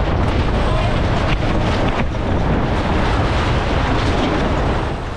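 Strong wind buffeting the microphone on a sailboat's deck in a gust, a steady low rumble, with water rushing along the hull and a few short knocks.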